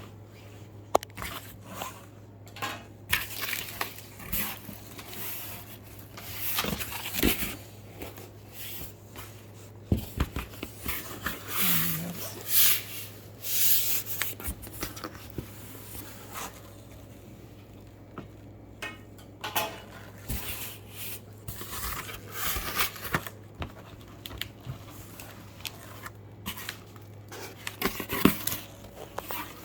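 Handling noise from unboxing a boxed portable speaker: scattered clicks, knocks, scrapes and short rustling and tearing noises of cardboard and packaging, over a low steady hum.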